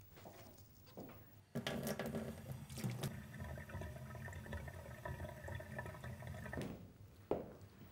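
Water running from a wall tap into a sink as hands are rinsed under the stream; the flow starts suddenly about a second and a half in, runs steadily, and stops shortly before the end.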